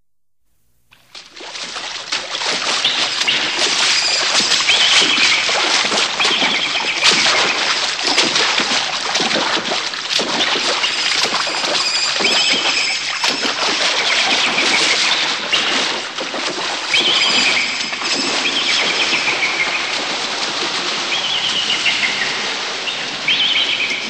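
A recorded nature sound effect, starting about a second in after silence: a dense rushing, fluttering noise with birds chirping over it in short repeated calls.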